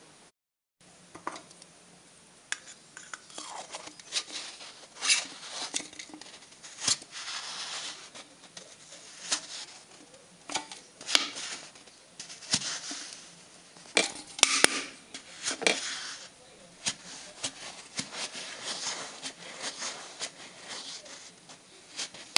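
Thin aluminium drink can being worked by hand with a small metal tool: irregular clicks, taps and scratchy scraping of metal on metal.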